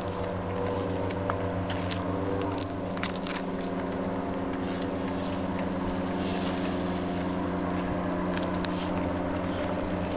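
A steady low engine-like hum, with scattered light clicks and scuffs over it.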